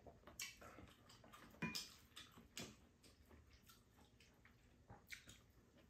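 Near silence broken by faint clicks and scrapes of spoons against bowls while eating: a handful of short taps, the loudest about a second and a half in.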